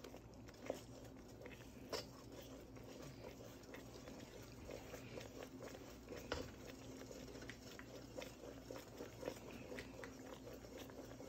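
Wooden spoon stirring thick simmering praline syrup in a metal pot, faint, with a few light clicks of the spoon against the pot. The candy is simmering after the butter and vanilla have gone in.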